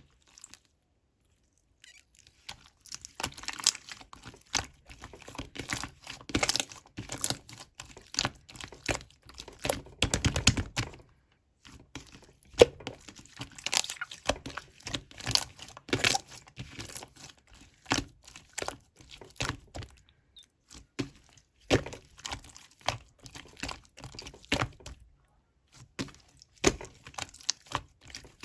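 Clear slime being squished and pressed by hand, giving dense, irregular crackling and popping clicks, broken by a few short pauses.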